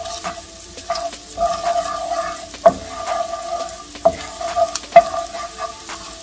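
Minced garlic sizzling in olive oil in a nonstick skillet over medium-high heat, stirred with a wooden spoon that knocks against the pan now and then. The sharpest knocks come about two and a half and five seconds in.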